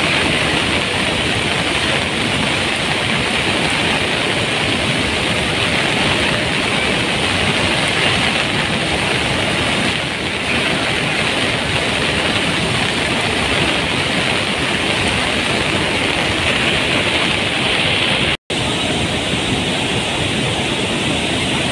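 Floodwater rushing loudly and steadily through the dam's open spillway gates, a continuous churning roar of water. The sound cuts out for an instant about three-quarters of the way through, then carries on.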